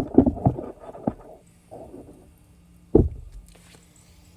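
Clattering and knocking of small parts and tools being handled on a small-engine carburettor, ending in one sharp knock about three seconds in. A faint steady hum runs underneath from about halfway.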